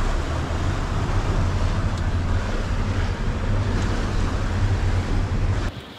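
Wind rushing over the microphone on an open boat at sea, with wave noise and a steady low rumble; it cuts off suddenly near the end.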